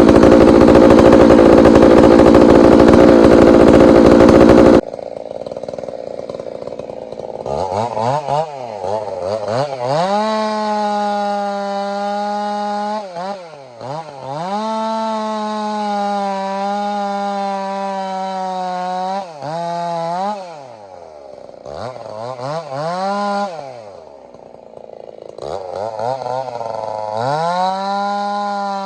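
Chainsaw with a 32-inch bar running hard while cutting tamarack, revved up and down repeatedly, its pitch holding high, sagging and dropping back toward idle between cuts. It opens with a very loud, steady noise that cuts off suddenly about five seconds in.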